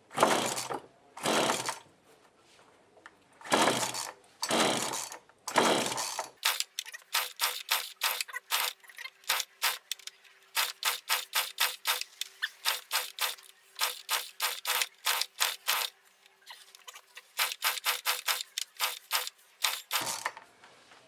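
Two-stroke chainsaw being pull-started over and over: the recoil starter whips out about once a second at first, then comes pull after pull of rapid chuffing as the engine turns over without catching. The saw's carburettor has just been rebuilt, and the owner suspects its low-speed mixture is set too lean, making it hard to start.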